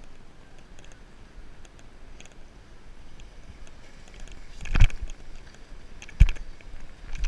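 Climbing barefoot over rock with a body-worn action camera: faint scuffs and small clicks of hands and feet on the stone, and two heavy thumps about a second and a half apart past the middle, as the body or camera knocks against the rock.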